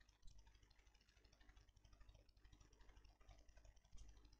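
Near silence: a faint low hum, with a soft click about a quarter second in and another near the end.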